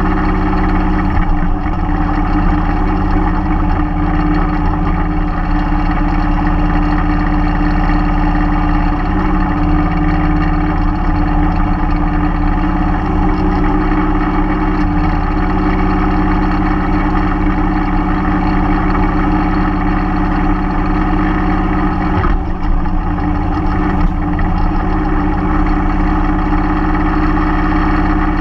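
Mahindra 3016 compact tractor's diesel engine running steadily under a backhoe, its pitch shifting slightly now and then as it takes load.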